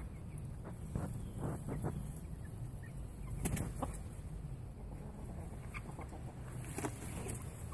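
A pregnant doe rabbit digging and shuffling in hay inside a plywood nest box, building her nest before kindling: rustling hay with a few sharp scratches and knocks against the wood, the loudest about three and a half seconds in.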